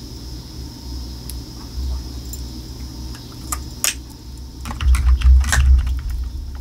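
Lipstick tubes and caps being handled: a few sharp plastic clicks and taps, with a cluster of clicks and a low handling rumble about five seconds in. A faint steady high whine runs underneath.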